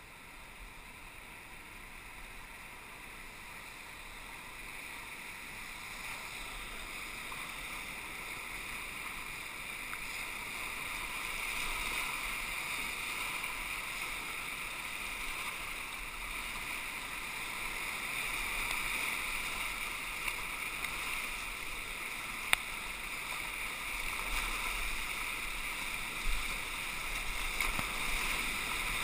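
Rushing whitewater of river rapids, a steady hiss that grows louder as the kayak runs down into the rapid. A single sharp click comes about two-thirds of the way through.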